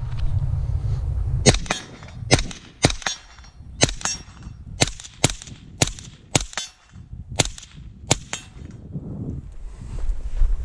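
Suppressed 5.56 AR-15 carbine (Geissele Super Duty 14.5 with a Surefire RC2 suppressor) fired semi-automatically: about a dozen shots, many in quick pairs, over about seven seconds. Wind on the microphone is heard before the shooting starts and again after it stops.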